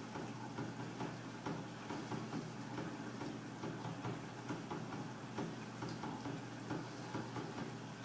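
Built-in dishwasher running: a repeating rhythm of ticks and knocks, roughly two a second, over a steady motor hum.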